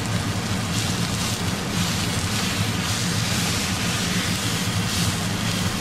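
Beef roast sizzling as it browns in olive oil in a hot cast-iron skillet. The sizzle swells about a second in as the meat is turned with a fork, over a steady low hum.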